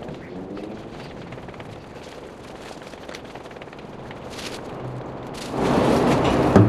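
Footsteps and handling noise from a body-worn camera as a person walks along a building corridor. About five and a half seconds in, a much louder, dense crackling noise with a low hum underneath sets in and carries on.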